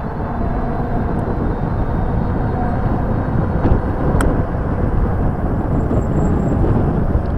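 Steady rumbling noise of riding a Lankeleisi X3000 1000 W electric bike along a paved path: wind and tyre noise on the microphone, with a single sharp click about four seconds in.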